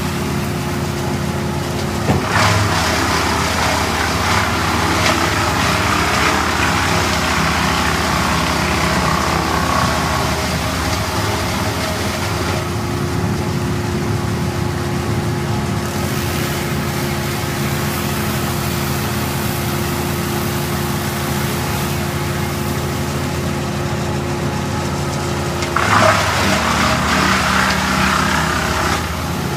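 Tree-cutting equipment: an engine running steadily, with two louder stretches of rough cutting or grinding noise, one from about two seconds in and one near the end.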